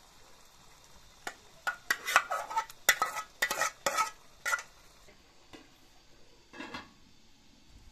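Metal spoon scraping and clinking against a metal bowl, a quick run of ringing scrapes and taps as grated tomato is spooned out. Near the end, a single softer clank as a metal lid goes onto the pan.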